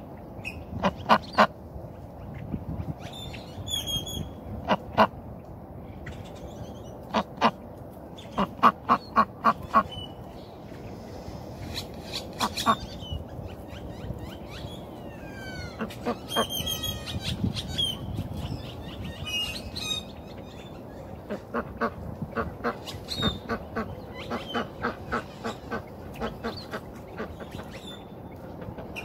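Ducks quacking in short quick runs of calls, again and again, with a longer run of quacks near the end. High, thin chirping calls of smaller birds come in between.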